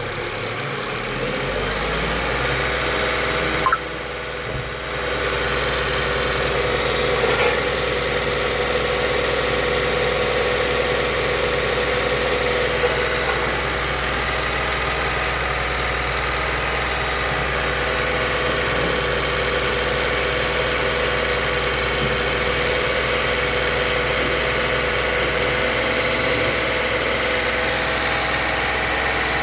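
A VW Polo's freshly replaced engine idling steadily, with a short click and a brief dip near four seconds in and a slight rise in revs a couple of seconds later.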